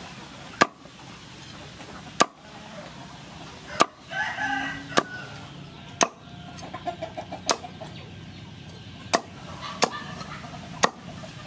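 Heavy cleaver chopping through crispy fried pork belly onto a wooden chopping board: about nine sharp chops, roughly one every second or so. A chicken clucks in the background about four seconds in.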